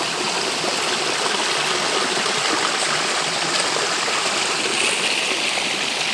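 Running water in a stream: a steady rushing and trickling.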